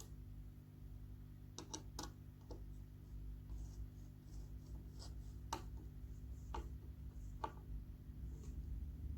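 Scattered light clicks and scratches of hands handling small hard parts, about eight clicks in all, over a steady low hum.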